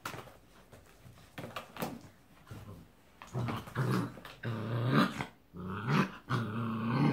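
Gordon setter puppies growling: a series of short growls from about three seconds in, after a few seconds of light clicks and knocks as they scramble on the wooden floor.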